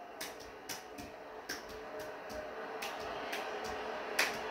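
About half a dozen sharp clicks at uneven intervals, the loudest near the end, over a faint steady hum.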